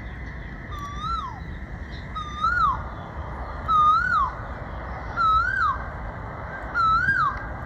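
A bird giving the same call over and over, a whistle that rises and then drops sharply, five times about a second and a half apart, over a steady low wind rumble.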